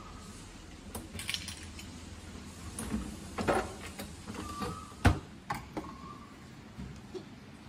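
A series of sharp plastic clicks and knocks from handling a Nespresso milk-carafe capsule machine, including the lever on top being worked, with the loudest knock about five seconds in.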